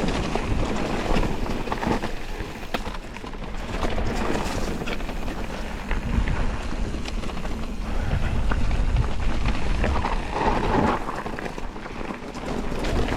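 Wind buffeting the microphone as an electric mountain bike rides a rough dirt trail, with tyres rolling over the ground and many short knocks and rattles from the bike.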